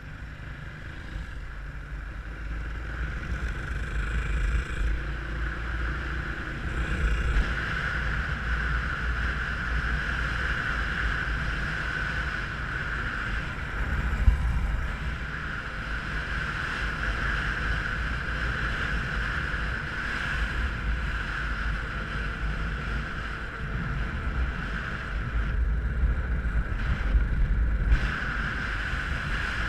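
Dirt bike engine running steadily under way, heard from a helmet camera and largely buried under wind buffeting on the microphone, swelling and easing as the rider speeds up and slows. A single sharp knock about halfway through.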